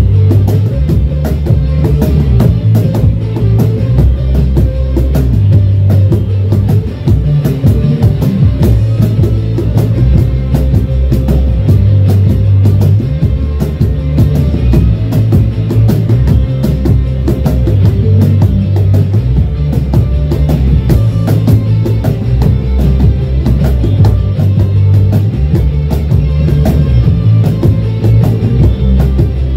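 Rock music track playing steadily, with a driving drum beat, a bass line that moves between held notes, and guitar.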